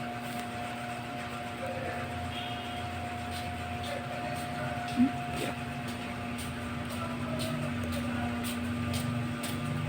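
A steady mechanical hum with two constant tones under it, with faint light ticks and one brief short sound about five seconds in.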